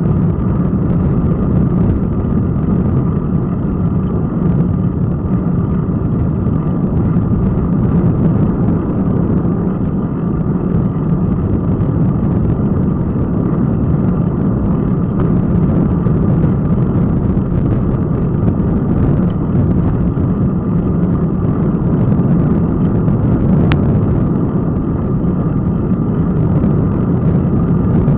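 Steady low rumble of wind and road noise on the microphone of an action camera riding on a moving bicycle. A faint high tone runs underneath, and there is one sharp click near the end.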